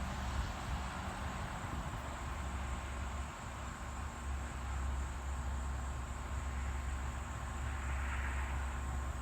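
Steady outdoor ambience: a constant low rumble with an even hiss over it, and no sudden sounds.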